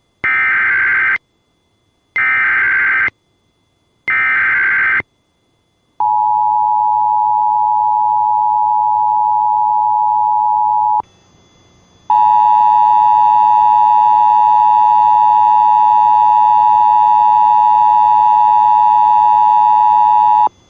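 Emergency Alert System tones: three one-second bursts of warbling SAME data, the end-of-message code that closes a test, then the two-tone EAS attention signal (853 and 960 Hz) held for about five seconds. After a second's pause a second attention signal sounds, harsher and buzzier, and runs for about eight seconds.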